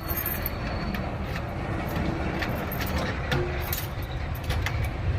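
Steady low rumble of a moving vehicle: engine and road noise while driving.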